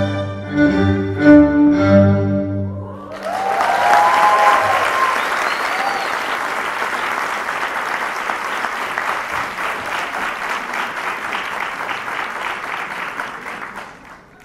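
A live string ensemble plays the final accented chords of a tango, ending about three seconds in. An audience then applauds, with a few shouts early in the applause, and the clapping fades away near the end.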